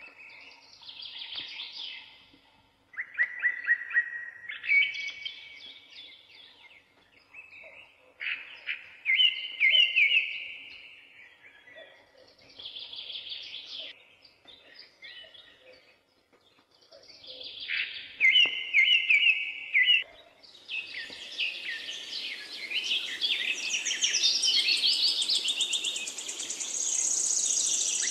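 Birds singing: repeated phrases of short chirps and trills. From about twenty seconds in, the song grows denser and higher, over a steady hiss.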